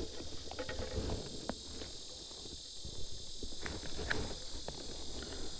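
Steady high-pitched insect chorus, with scattered faint taps and knocks as a largemouth bass is held and shifted on a plastic measuring board.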